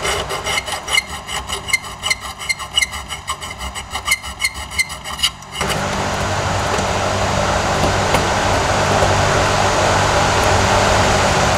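Hand tool worked in short scraping strokes on the ultralight's instrument panel, about three strokes a second with a slight metallic ring, while the gauges are fitted into their holes. About five and a half seconds in the strokes stop and a steady, louder noise takes over.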